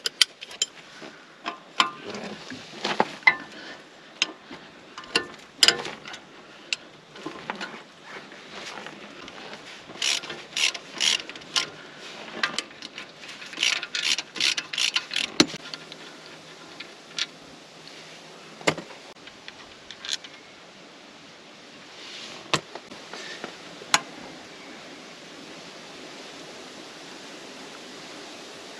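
Hand ratchet and socket undoing the spindle bolts on a Land Cruiser 80 Series front axle: scattered sharp metal clicks and clinks, with two runs of rapid ratchet-pawl clicking about a third and halfway through. It is quieter toward the end, with only a few single clicks.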